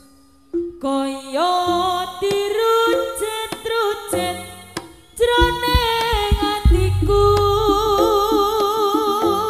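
Javanese jaranan music. A high melody with a wavering, vibrato-like pitch plays over repeated drum strokes. It begins after a brief pause about half a second in and dips briefly shortly before the middle.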